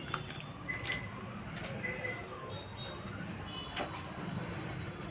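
A few sharp clicks and taps of small hardware being handled, over a steady low hum, with several short high chirps in the background.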